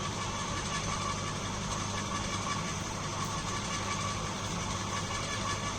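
Electric garden woodchipper running steadily with an even motor hum.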